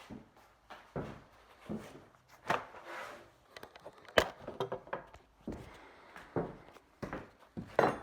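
Drywall and wall trim being pried and broken off by hand: a string of irregular knocks, thuds and scrapes, with one sharp knock about four seconds in.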